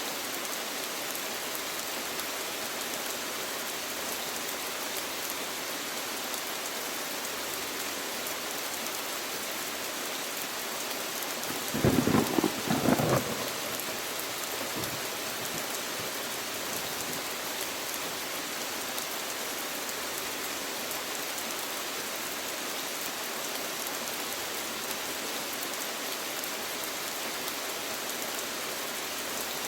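Steady rain falling, an even hiss throughout, with one brief, louder burst of rough noise about twelve seconds in.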